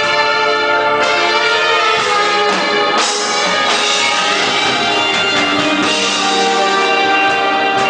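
Big band playing a ballad: a saxophone solo in front of sustained brass chords from trumpets and trombones, with drum kit. The band shifts to a new chord with a broad accent about three seconds in.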